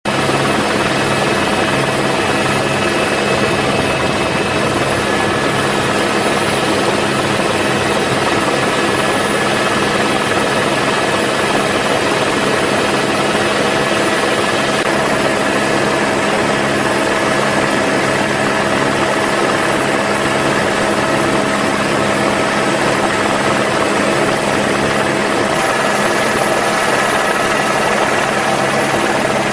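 Helicopter turbine and rotor noise heard from aboard the aircraft: a steady drone with a thin whine over a pulsing low beat. The tone shifts slightly about halfway and again near the end.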